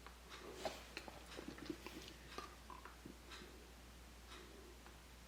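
Near-silent room tone with a faint steady low hum and faint, irregular small clicks, scattered mostly through the first three seconds.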